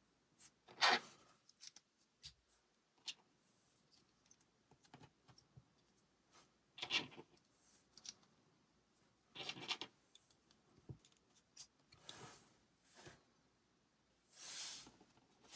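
LEGO plastic pieces being handled during assembly: scattered light clicks and several brief rustling or scraping sounds.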